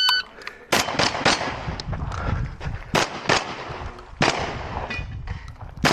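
An electronic shot timer beeps once, then about seven gunshots follow in quick pairs and groups over the next few seconds. This is a practical-shooting course of fire starting on the timer's start signal.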